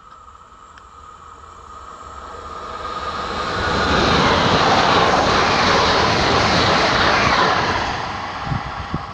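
SNCF AGC regional multiple unit passing at speed on the line: a rushing noise of wheels on rail that builds as it approaches and stays loud for several seconds as the cars go by, then eases.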